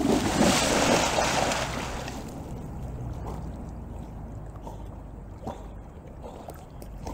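A black Labrador splashes into a pond, a loud churning splash for the first two seconds, then quieter water sloshing as she swims away from the bank.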